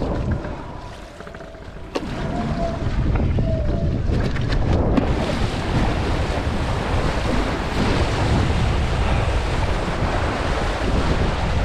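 Wind buffeting the microphone and water rushing past a windfoil board under sail. The rush drops for a moment about a second in, there is a click near two seconds, and from about five seconds in it becomes a fuller, steady rush of wind and spray.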